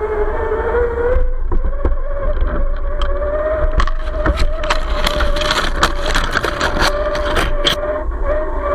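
Radio-controlled Jeep Gladiator scale truck's electric motor and gear drive whining steadily at a nearly constant pitch over a low rumble, with many sharp clicks and crunches as it drives over rough ground.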